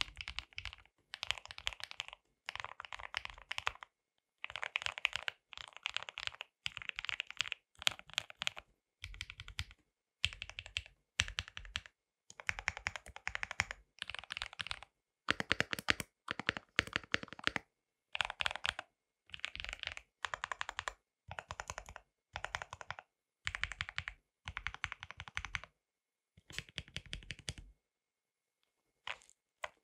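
Typing on a custom KBD67 Lite R3 mechanical keyboard: lubed KTT Strawberry linear switches on an acrylic plate in a stacked acrylic gasket-mount case, dampened with foam, under Cherry-profile doubleshot ABS keycaps. The keys are struck in quick runs of about a second with short pauses between, and a longer pause near the end.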